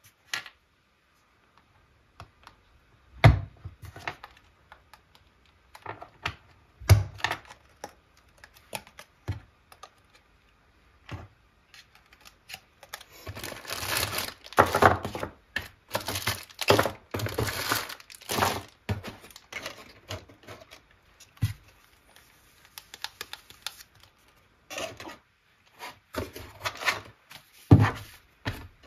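Handling sounds of enamel pins being fitted onto paper backing cards: scattered sharp clicks and knocks of pins and cards set down on the desk, with a few louder knocks. About halfway through comes a stretch of plastic crinkling as pins are taken out of their small plastic bags.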